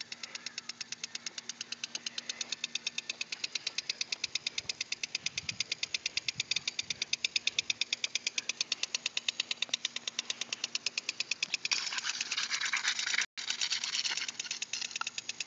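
Rotating lawn sprinkler ticking rapidly and evenly, about eight ticks a second, as its arm spins. Near the end the ticking gives way for a couple of seconds to a louder hiss.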